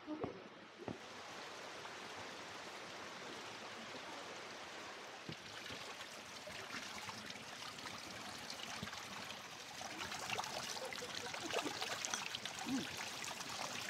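Running water trickling and splashing, growing louder about five seconds in and again near ten seconds, with a couple of knocks near the start.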